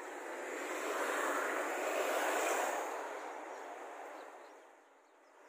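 A vehicle passing by: a rushing noise that swells for about two seconds and then fades away.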